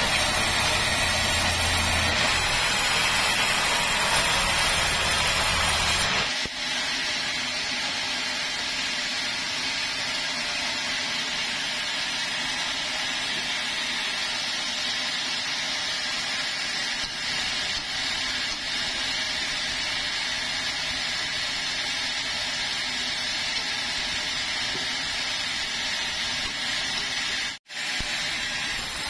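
Band sawmill running and sawing keruing timber: a steady machine noise with a hiss from the blade. The sound changes abruptly about six seconds in and drops out for a moment near the end.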